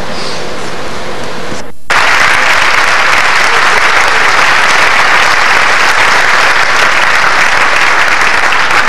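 Audience applauding, a dense, steady clapping that starts abruptly about two seconds in, right after a brief dropout in the recording.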